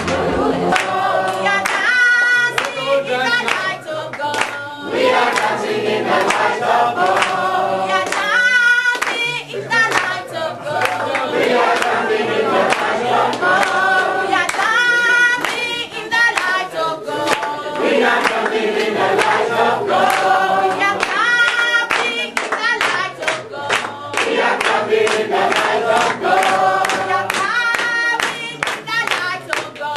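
A group of people singing together in chorus, clapping their hands in rhythm along with the song.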